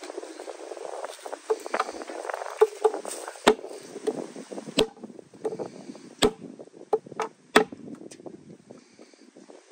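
Knife scaling a whole fish: quick, uneven scraping strokes of the blade along the scales, with a few sharp clicks from about midway on.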